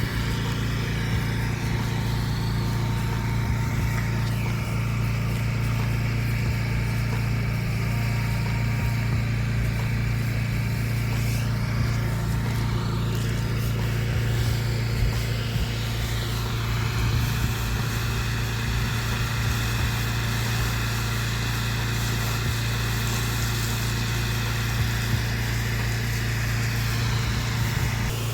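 Pressure washer engine running steadily at a constant speed, a continuous low hum.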